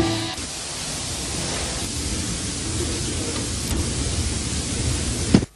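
Steady rushing noise with no tune in it, which ends sharply with a short knock near the end.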